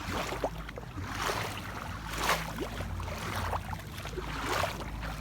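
Footsteps squelching and splashing through wet, slippery mud, about one step a second.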